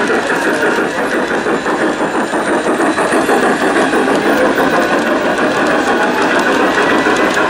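Large-scale model steam locomotive and its freight cars running steadily past on the track, a continuous mechanical running sound with a fast, even clatter.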